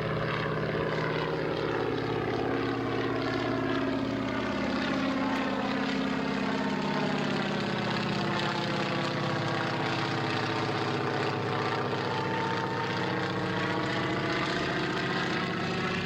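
Piston-engined propeller airplane running, a steady engine drone with no break.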